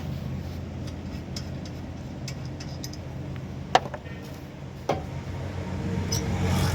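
Two sharp metallic clinks, a little over a second apart, over a steady low hum, typical of hand tools being handled on metal while starting to take apart a car's brake assembly.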